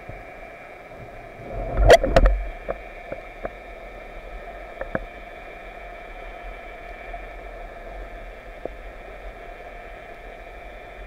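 Underwater ambience picked up by a speargun-mounted camera: a steady hiss with faint hum. About two seconds in comes a short burst of loud knocks and clicks, then a few lighter clicks.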